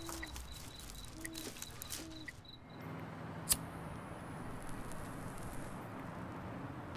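Quiet night ambience with a regular high chirping, about four a second. Then the background changes, a cigarette lighter gives one sharp click about three and a half seconds in, and its flame hisses faintly for a couple of seconds.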